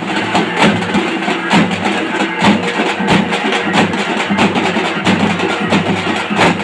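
A troupe of folk drummers beating large double-headed drums together in a dense, fast rhythm, with loud accents about once a second. A steady low tone runs underneath.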